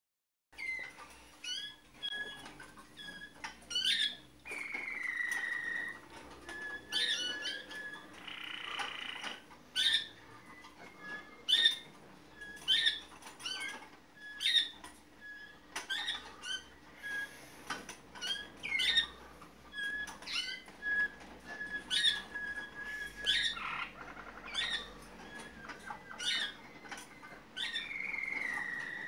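Malinois (Waterslager) song canaries singing a varied song. It mixes long held whistled notes, short sharp notes, gliding whistles and rapid trills, with few breaks.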